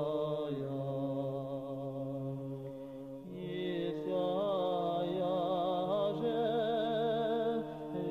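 Male monastery choir singing Orthodox memorial-service (panikhida) chant in long held chords, the upper voices wavering with vibrato. The chord changes about three seconds in.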